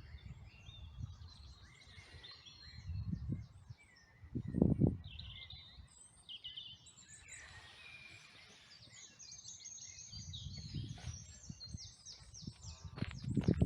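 Several wild birds singing and chirping, short calls and trills overlapping, over intermittent low rumbling that swells loudest about four and a half seconds in.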